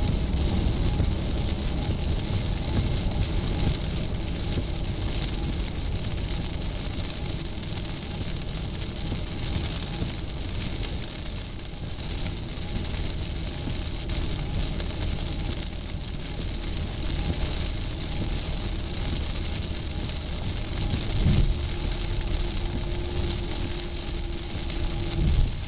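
Steady road noise heard from inside a car's cabin on a highway in heavy rain: a low tyre-and-engine rumble under the hiss of rain and wet spray on the car.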